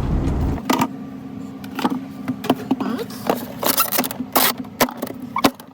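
Scattered sharp clicks and knocks of hands handling wires and parts inside a refrigerator, over a steady low electrical hum. A louder low rumble stops about half a second in.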